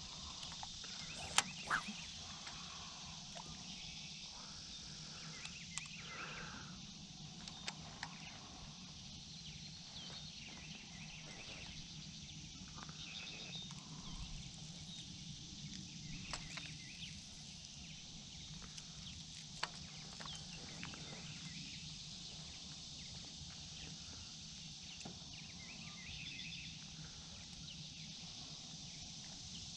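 Faint outdoor ambience on open water: a low steady hum under a high hiss, with scattered small bird chirps and a few sharp clicks, the loudest about a second and a half in.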